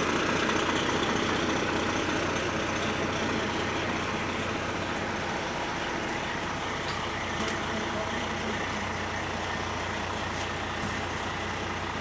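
Fire engine's diesel engine idling, a steady low rumble that eases slightly in loudness over the first few seconds.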